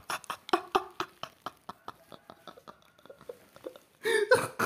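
A man laughing in short breathy pulses, several a second, fading over about three seconds, then a louder burst of laughter near the end.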